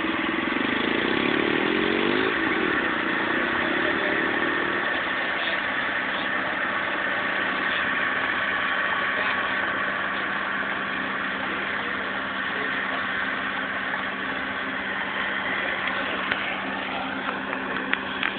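Engine running steadily, with a wavering rise and fall in pitch during the first few seconds.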